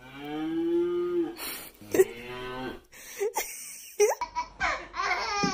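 Recorded cow moo played through a Google smart speaker: one long, low moo lasting about a second and a half.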